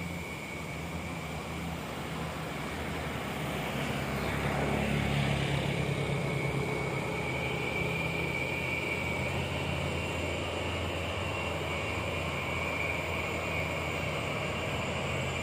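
Engines of a convoy of diesel trucks crossing a bridge, heard as a steady low drone that grows louder about four seconds in as the trucks come closer, with a thin high whine running alongside.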